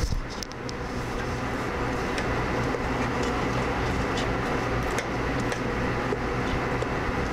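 Steady hum of a commercial kitchen exhaust hood fan, with a few faint clicks as a spoon stirs lentils and spinach in a stockpot.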